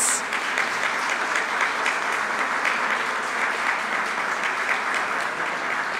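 Steady applause from a group of people clapping their hands, holding an even level throughout.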